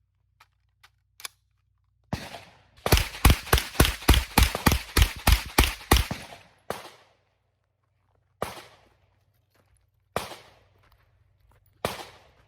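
A 9mm AR-15-platform carbine firing: a few faint clicks, one shot, then a fast string of about a dozen shots in some three seconds, followed by single shots about every second and a half.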